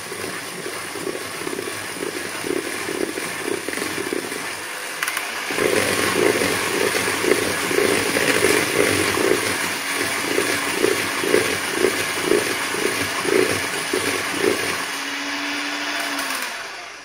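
Electric hand mixer running, its twin beaters churning a thick, stiff batter of breadcrumbs, walnuts and coconut in a plastic bowl. The whirring gets louder about five seconds in and pulses about twice a second, then the motor is switched off right at the end.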